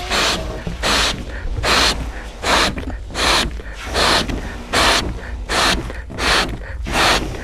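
People blowing up rubber balloons by mouth, with quick, rhythmic breaths and puffs of air a little more than once a second.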